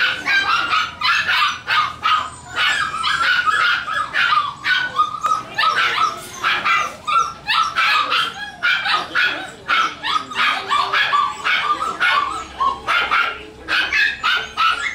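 Havanese puppies yipping and barking: rapid high-pitched yaps, several a second, in runs with brief pauses.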